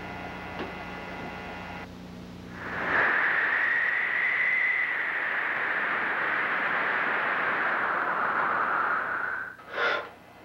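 A steady electrical hum, then from about three seconds in a loud static-like hiss with a high steady whine, which drops off near the end into a short rushing burst.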